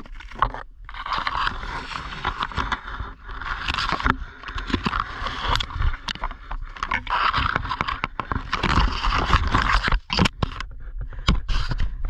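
Shrub leaves and twigs rustling and scraping close to the microphone in irregular spells, with many small clicks and snaps, over a low rumble of handling noise.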